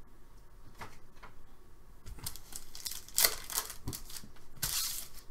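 Foil wrapper of an Upper Deck SP Authentic hockey card pack being torn open and crinkled by hand. The ripping starts about two seconds in, with the sharpest tear a little past three seconds and another near the end.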